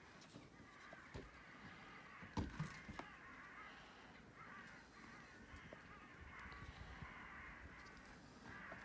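Faint crows cawing in the distance, with a few small clicks and knocks from a plastic wiring connector being handled, the clearest about two and a half seconds in.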